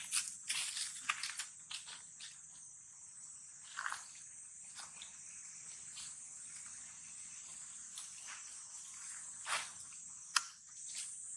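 A steady, high-pitched insect drone, with scattered sharp clicks and short rustles over it.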